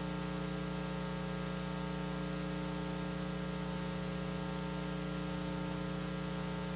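Steady electrical mains hum with a buzz of overtones and a hiss underneath, unchanging throughout: background noise in the lecture's audio chain, heard in a pause in the talk.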